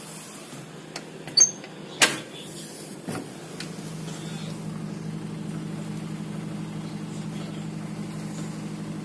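A few sharp clicks and a knock from the balcony door being handled, the loudest about two seconds in, then a steady low hum that sets in about three and a half seconds in.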